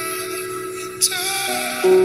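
Music: sustained held notes that change in steps, with a short sharp hit about a second in. It gets louder near the end.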